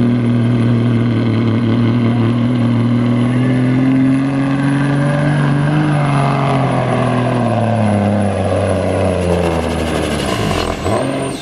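Kenworth semi tractor's diesel engine under full load, pulling a weight sled: a loud, steady drone that gradually drops in pitch over the last few seconds as the sled bogs it down, then falls away sharply near the end. A high thin whistle runs above it.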